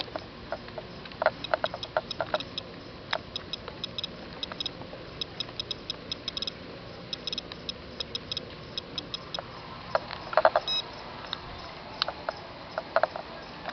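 Irregular sharp ticks, several a second at random intervals, from a SOEKS dosimeter's Geiger counter counting normal background radiation, over a steady hiss.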